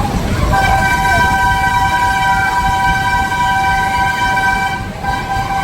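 A horn sounding one long held blast, a chord of several steady tones, for about four seconds. It breaks off briefly near the end and then sounds again, over a steady low rumble.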